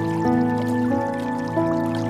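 Soft ambient music of sustained, layered tones that shift to new notes a few times, over a faint background of trickling water and drips.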